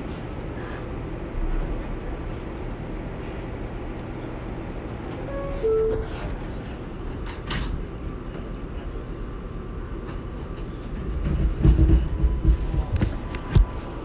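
New York City subway train running: a steady rumble of wheels and motors, a brief falling two-note tone about five seconds in, and heavy low knocks and clatter of the cars over the track in the last few seconds.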